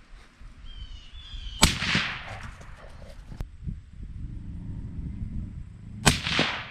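Two suppressed 6.5 Creedmoor rifle shots, about four and a half seconds apart, each a sharp crack with a short fading tail. A bird chirps just before the first shot.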